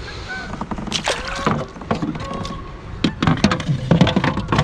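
Scattered knocks and clicks of handling, several sharper ones a little after the middle, with faint voices behind them.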